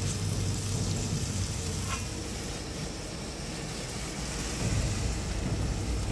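Steady low rumble with a faint sizzle of trout frying in a pan on a propane camp stove; the rumble grows a little louder near the end.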